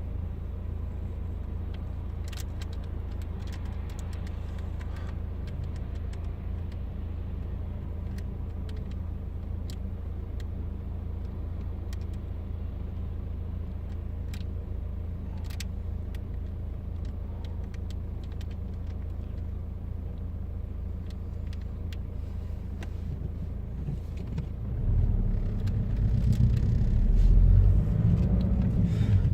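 Steady low rumble with faint scattered clicks, growing louder about 25 seconds in.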